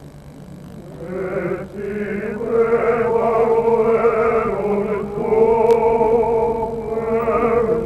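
A choir singing a slow liturgical chant, coming in about a second in, with long held notes.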